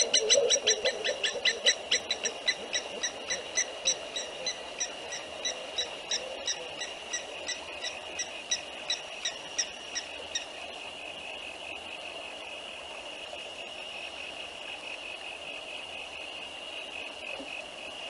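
A bird giving a long series of short whistled notes, quick and loud at first, then slowing and fading until they stop about ten seconds in. A steady high-pitched insect chorus goes on beneath it throughout.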